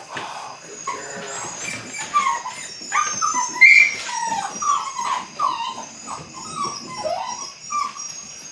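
Belgian Malinois puppy whining and yipping in a rapid run of short, high calls that often fall in pitch, the loudest about three and a half seconds in.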